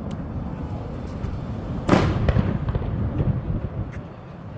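Fireworks going off: one loud bang about two seconds in, with a trailing rumble, and smaller pops scattered around it.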